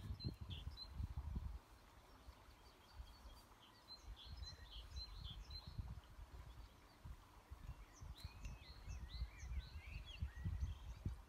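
Small birds chirping and singing in many short, quick calls, with wind gusting on the microphone as a low rumble near the start and again near the end.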